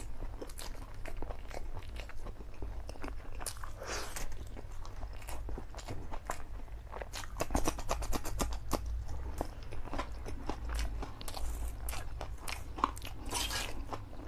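Close-up mouth sounds of eating spicy black bean noodles: wet chewing and slurping, with a run of loud crunching bites into a raw green chilli about halfway through.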